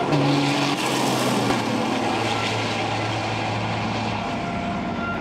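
Race truck engines running on the circuit: a steady engine drone whose note holds and then shifts to a lower one partway through, over a broad rush of noise.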